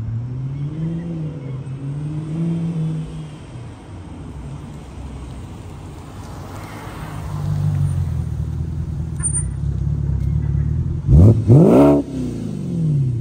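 2008 BMW 550i E60's 4.8-litre V8 through a muffler-deleted 3-inch exhaust, driving up and down. The engine note rises and falls, fades a little, then grows louder as the car comes back, with a sharp rev rising and falling as it passes close about 11 seconds in.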